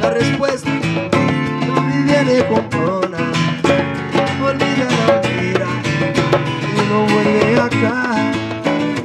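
Live acoustic music in a Brazilian-Latin groove: a rhythmically strummed guitar, with a sliding, wavering melody line over it and no sung words.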